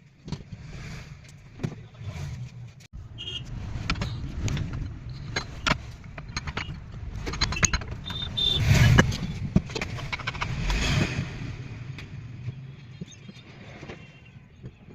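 Handling and tapping noises from work on a ceiling fan during a bearing change: irregular metal clicks and knocks over a low rumble, loudest about nine seconds in.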